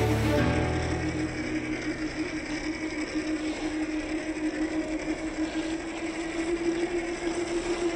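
Electric drive of a 1/10-scale Boom Racing BRX02 RC crawler (Hobbywing Fusion motor and geartrain) whining steadily as it crawls at low speed, with the rustle and crunch of dry leaves under its tyres.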